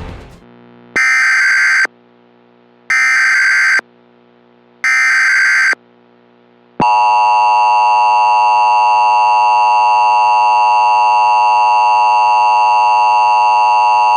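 Emergency Alert System tones: three short bursts of buzzy data header tone, about a second each, followed by the long, steady two-tone attention signal lasting about eight seconds. The sequence signals that an emergency broadcast message is about to follow.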